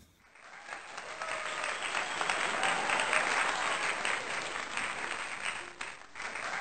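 A crowd applauding: many hands clapping together, swelling in over the first two seconds. It dips briefly near the end and then picks up again.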